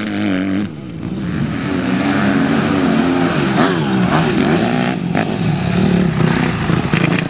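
Two motocross dirt bikes' engines revving hard, their pitch climbing and dropping again and again as the riders accelerate and shift through gears.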